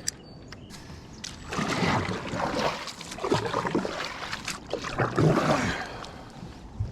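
Water splashing and sloshing around a kayak in uneven swells.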